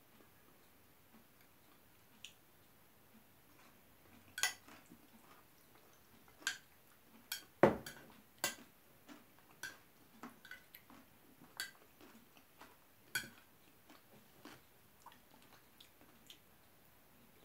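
Metal spoon clinking and scraping against a bowl while eating, with soft chewing between. About a dozen sharp, irregular clicks, the loudest about seven and a half seconds in.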